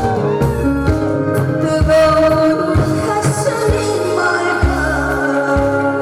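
A song sung over a loud backing track, with a steady beat of bass notes under the singer's held melody lines.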